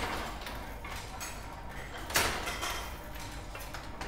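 A 1930s David Crabtree Axminster gripper loom running, its mechanism clattering steadily, with a sharp clack at the start and a louder one about two seconds later.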